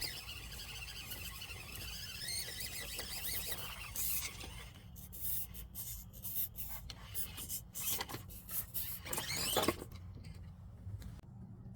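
Axial SCX24 micro crawler's small electric motor and gears whining, rising and falling in pitch for the first few seconds, then its tires and chassis scraping and clicking over rock in a run of short scrapes, the loudest just before the end.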